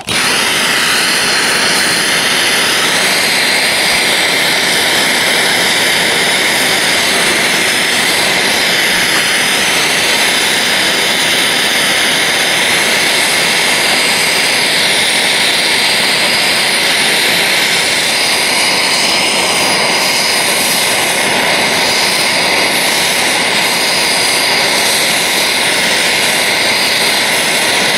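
Handheld gas blowtorch burning with a loud, steady hiss, its flame held on a plastic-packaged integrated circuit chip to burn the package off.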